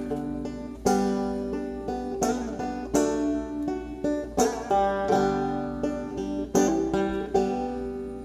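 Background music of plucked-string picking, with notes struck sharply and ringing out, easing off near the end.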